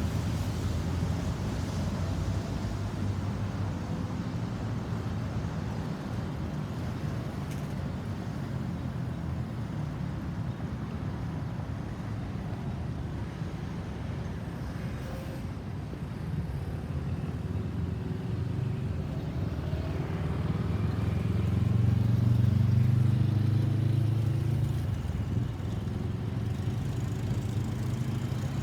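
Road traffic running by: engines and tyres as a steady low rumble, with one vehicle growing louder and passing close about three-quarters of the way through.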